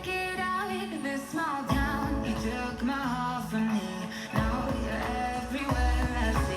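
A song with singing played through an Anker Soundcore Motion+ Bluetooth speaker during a sound test, with heavy bass notes under the vocal.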